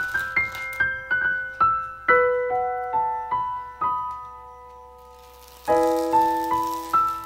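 Gentle background piano music: a melody of single struck notes, each fading away. New notes stop for about two seconds past the middle, then the melody picks up again.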